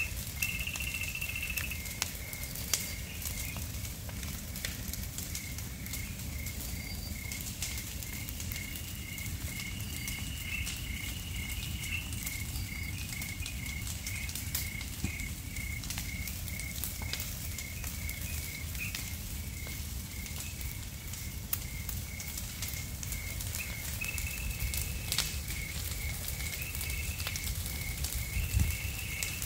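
Burning felled logs and cut brush crackling and popping in an open burn-off, over a low rumble. A steady high chirping, about two or three a second, runs behind it.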